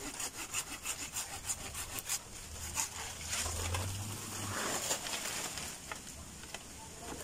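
Hand pruning saw cutting through a green cacao sucker stem in quick back-and-forth strokes, about three to four a second. The strokes stop about two seconds in, leaving softer, irregular scraping and handling noise.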